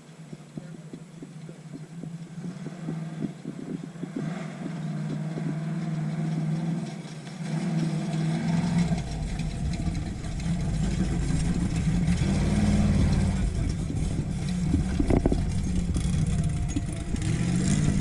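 Off-road race vehicle's engine revving in uneven surges as it works over rocks, getting louder as it comes closer, with a deeper rumble coming in about halfway.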